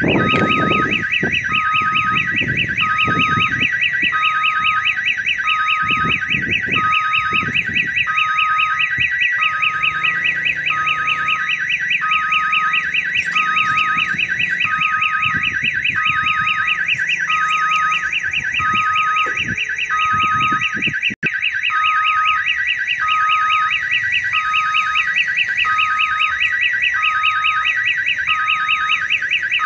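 Railway level-crossing warning siren sounding without a break: a fast-warbling electronic tone over a beeping note that repeats every second or so, like the jingle of an odong-odong kiddie ride. It signals that a train is approaching the crossing. Low rumbles come and go underneath.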